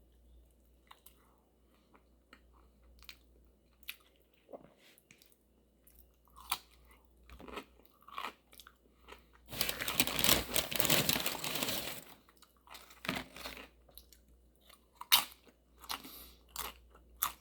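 Close-up chewing with sharp, crisp crunches, typical of biting into fried, crispy flautas. About ten seconds in comes a louder burst of crunching lasting a couple of seconds, followed by more scattered crunches.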